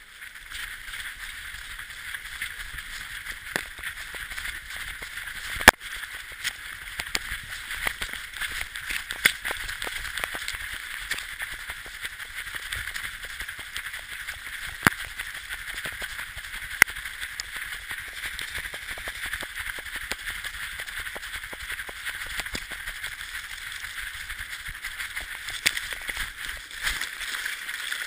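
A running sled dog heard from a camera on its own harness: a steady rustling, scuffing noise of the harness and paws on snow, with a few sharp clicks or knocks spread through.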